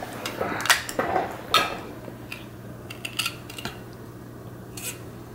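Plastic LEGO Duplo bricks clicking and clattering as they are handled and pulled apart, a scattered, irregular series of short sharp clicks.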